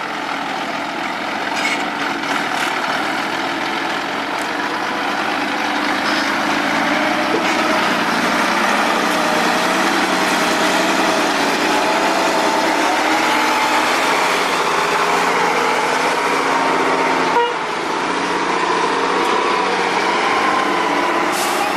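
Volvo F10 truck's diesel engine working under load, a steady engine noise with a whine that wanders up and down in pitch and rises a little over time. The sound briefly drops out once, late on.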